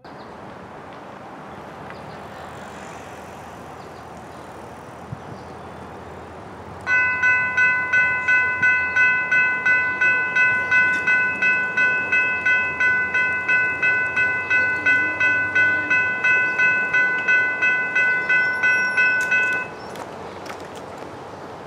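General Signals Type 3 electronic railroad crossing bell ringing: a bright electronic ding repeating a little over twice a second, sounding the crossing warning. It starts suddenly about seven seconds in and stops abruptly about thirteen seconds later, with steady outdoor background noise before and after.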